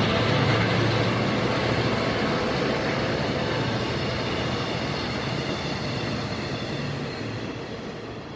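KORAIL diesel-electric locomotive hauling a passenger train past: a low engine drone over the steady rumble of wheels on the rails, fading as the train pulls away.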